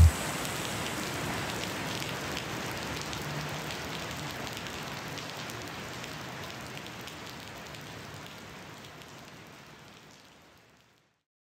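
A steady hiss with faint crackles, fading slowly away and ending about ten seconds in.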